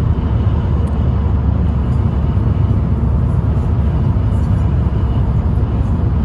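Steady low rumble of a car driving on a highway, road and engine noise heard from inside the cabin.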